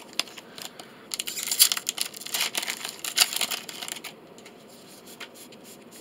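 Foil wrapper of a Magic: The Gathering Core Set 2020 booster pack being torn open and crinkled: a dense plastic crackle from about one second in to about four seconds in.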